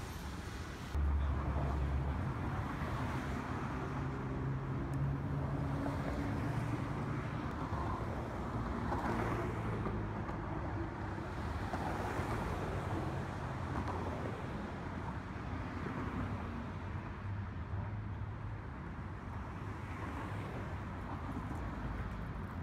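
Steady road traffic with the low drone of vehicle engines, stepping up in loudness about a second in.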